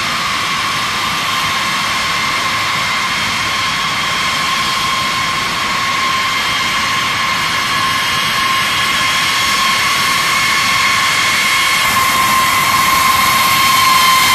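B-52H Stratofortress's eight TF33 turbofan engines running at taxi power as the bomber rolls past: a steady jet rush with a high whine, growing a little louder near the end.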